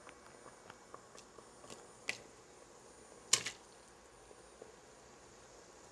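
Light clicks and knocks of kitchenware, with a sharper click about two seconds in and a louder double knock about three and a half seconds in.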